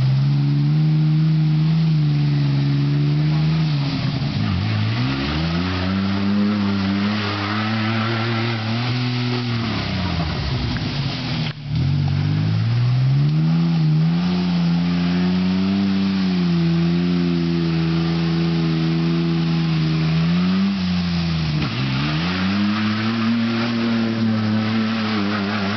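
Pickup truck engine revving hard in a deep mud hole, the revs climbing and dropping again and again as the wheels churn through mud and water.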